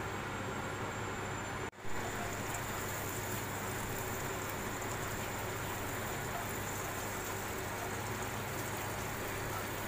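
Butter sizzling and bubbling as it melts in a hot non-stick wok, stirred with a spatula; a steady crackling hiss that breaks off for a moment about two seconds in.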